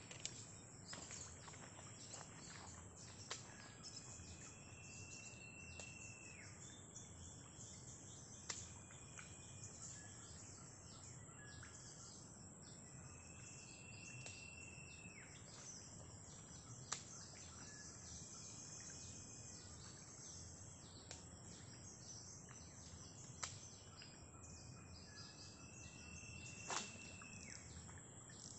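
Faint riverside forest ambience: a steady high chorus of insects, with a long whistled call heard three times, each lasting about two seconds and ending with a short drop. A few sharp clicks stand out.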